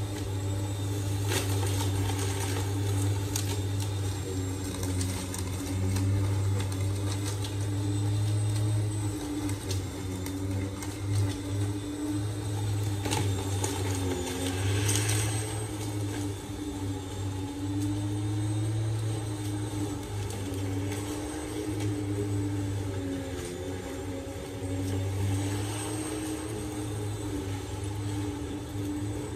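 Electric lawn mower running, a steady motor hum whose pitch sags briefly a couple of times.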